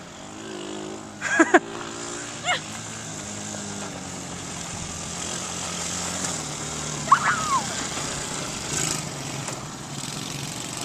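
Small ATV engine running steadily while riding, its note rising slightly partway through. A few short, high, sliding squeals cut in briefly near the start and again in the middle.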